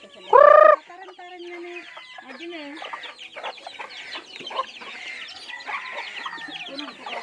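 A flock of native chickens (hens, roosters and a chick) clucking and chirping as they peck at scattered corn. There is one loud call about half a second in, then a steady run of short clucks and chirps.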